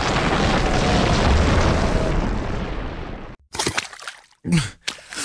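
Avalanche sound effect: a loud, dense rumble that cuts off suddenly about three and a half seconds in. It is followed by a man's short pained gasps and groans.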